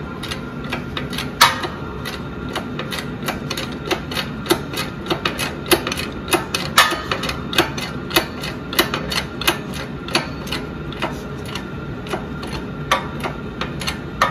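Hydraulic shop press pushing a new needle bearing into a sprocket hub: a run of sharp metallic clicks, a few each second and unevenly spaced.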